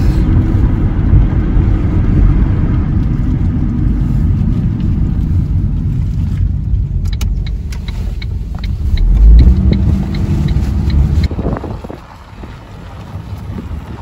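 Steady low road and engine rumble heard from inside a moving car. For a few seconds midway a regular ticking runs at about three ticks a second, and near the end the rumble turns quieter.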